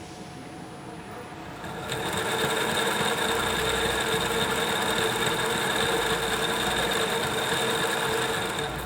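Gorman Machine Super 900 CNC toroid winder running, winding fine 29 AWG wire onto a toroid core: a steady mechanical hum with a high, even tone. It is quieter at first and starts winding about two seconds in, running steadily until just before the end.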